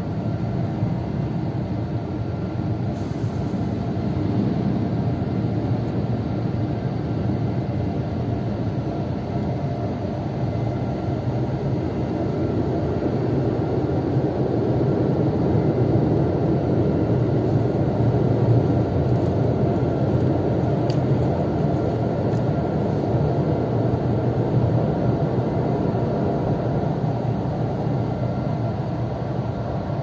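Automatic gantry car wash machine working over the car, heard from inside the cabin: a steady drone of motors and water that stays level throughout.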